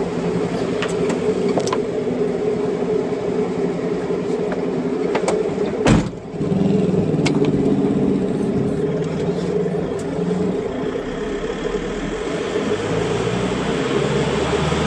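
Truck engine running, heard from inside the cab while driving, its note rising and falling with the throttle. A sharp knock comes about six seconds in, and the engine sound briefly drops before picking up again.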